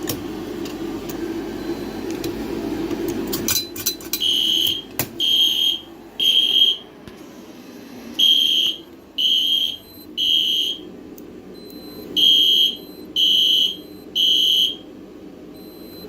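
Fire alarm horns sounding the temporal-three evacuation pattern after a manual pull station is pulled during a system test: three short high beeps, a pause, repeated three times, starting about four seconds in. Before the beeps there is a steady low hum and a few clicks.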